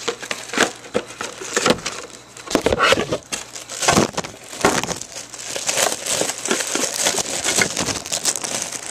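Plastic packaging crinkling and rustling as it is handled and pulled at to get it open, in irregular bursts of crackles.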